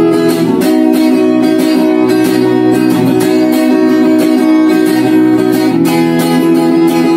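Guitar music: chords strummed in a steady rhythm, with no singing.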